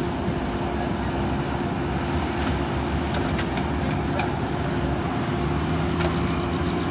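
JCB 3DX backhoe loader's diesel engine running steadily under work, with a few faint clicks about halfway through.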